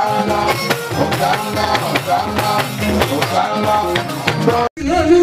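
Music with a steady drum beat and melodic instruments, with some singing. It cuts off suddenly near the end and a different piece of music begins.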